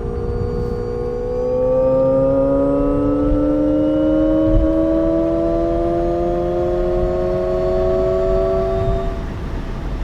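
Alpine A290 electric hot hatch's synthesized drive sound under acceleration: a layered artificial tone that climbs steadily in pitch for several seconds, then fades near the end, over a low road rumble.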